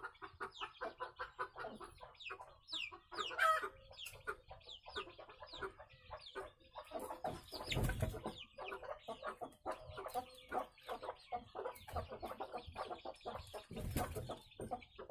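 Desi hens clucking while chicks peep in quick, high, falling chirps, a busy chatter of short calls throughout. One louder squawk comes about three and a half seconds in, and a low thump with a wing flutter near the end as a hen flies up into the coop doorway.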